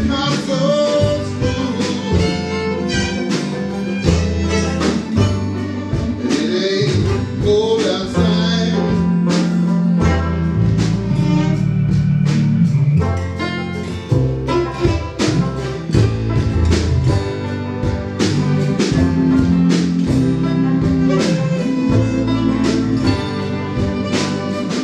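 A small live band playing a country tune in a room, with guitar and keyboard over a steady beat.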